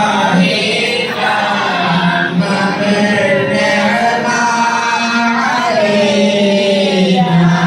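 A group of men chanting a mawlid, devotional praise of the Prophet Muhammad, in long drawn-out sung lines over a steady low held note.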